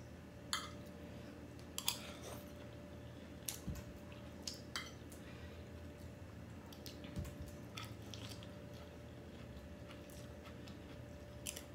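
Close-up eating sounds: chewing, with a few scattered sharp clicks of a metal spoon and fork against a plate, over a faint steady hum.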